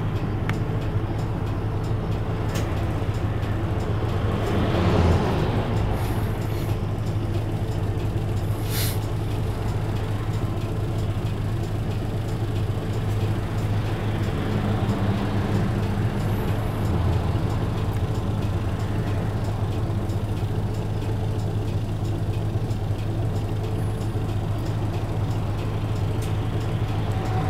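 Isuzu Erga Mio city bus's six-cylinder diesel idling steadily while stopped, heard from inside the cabin. There is a brief louder rush about five seconds in and a short sharp hiss about nine seconds in.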